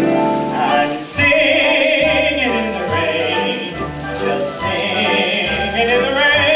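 Orchestral show music from a stage musical, with sustained bass notes under a wavering melody line.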